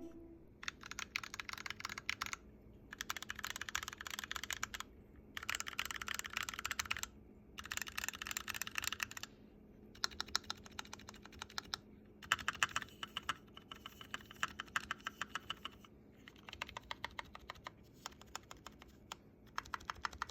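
Typing on a Glorious GMMK Compact mechanical keyboard with Drop Holy Panda tactile switches and PBT double-shot keycaps. Fast runs of keystrokes come in bursts of a second or two, with short pauses between.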